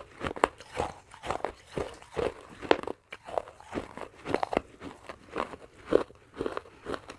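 Close-up biting and chewing of crunchy baked clay pot pieces, a steady run of dry crunches about two to three a second.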